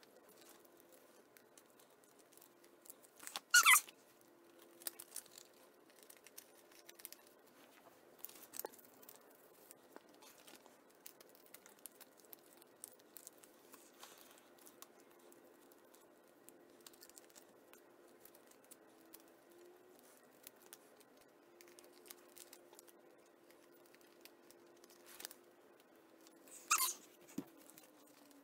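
Photocards and plastic binder sleeves being handled: soft ticks and rustles throughout, with two short, louder crinkles of plastic, one a few seconds in and one near the end. A faint steady hum sits underneath.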